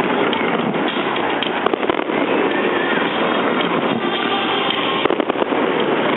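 Fireworks going off in a dense, continuous crackle, with clusters of sharp pops about one and a half and five seconds in.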